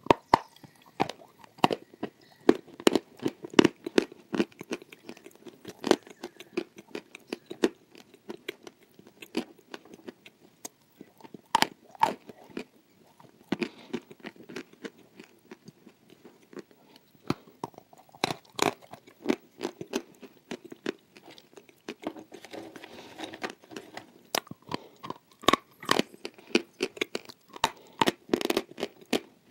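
Close-miked biting and chewing of hard, crunchy pieces: irregular sharp crunches and crackles, one after another.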